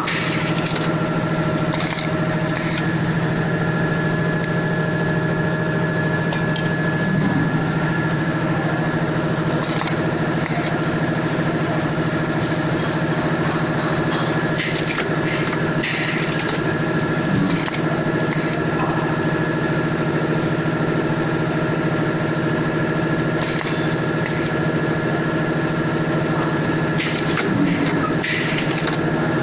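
Automatic-feed riveting machine running with a steady multi-tone hum, with clusters of sharp clacks every few seconds as the feeder and riveting head set rivets and washers into metal chair tubing.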